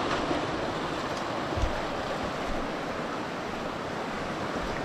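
Swollen river rushing steadily, the water running high.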